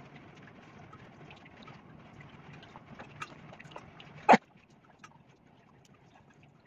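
Faint clicks and scrapes of a knife and fingers peeling pomegranates over a steel bowl, over a steady low hum. About four seconds in comes one short, sharp, loud sound, by far the loudest thing here, after which the hum stops.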